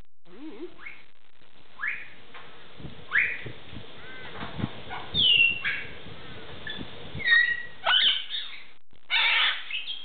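Blue-and-gold macaw calling in a string of short whistles and squawks, some rising and some falling in pitch, the loudest about five and seven seconds in, aimed at wild birds. Soft low knocks sound between the calls.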